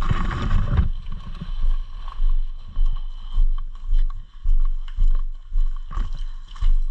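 A player's footsteps and gear rubbing against a body-worn microphone, in a steady walking rhythm of about two steps a second. It opens with a louder rustle lasting under a second.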